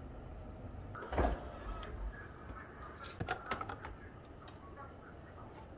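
Light handling knocks and clinks of kitchen things being moved and set down: one dull knock about a second in, then a cluster of small clicks and taps around three seconds in.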